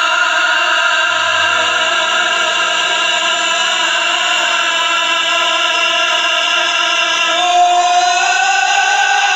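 Live singing over the PA: one long held vocal note that steps up to a higher note near the end, with the band playing underneath.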